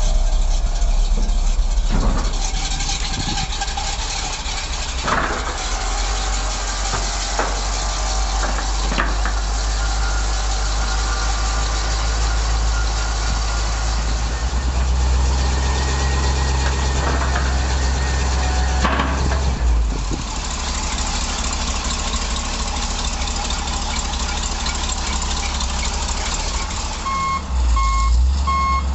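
The 1984 GMC Sierra 7000 dump truck's 366 gas V8 running steadily, with a few sharp knocks and clicks in the first ten seconds. Near the end the truck's reversing alarm starts beeping, about two beeps a second.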